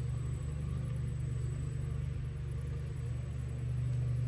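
Radio-controlled scale crawler truck's motor and drivetrain running at a slow crawl up a dirt slope, a steady low hum.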